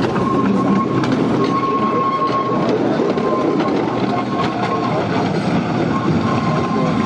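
Small narrow-gauge saddle-tank steam locomotive and its open passenger coaches passing close and running away along the track: a steady rumble of wheels on rail with light clicks from the rail joints. A thin, high, steady whine runs through it, dropping out now and then.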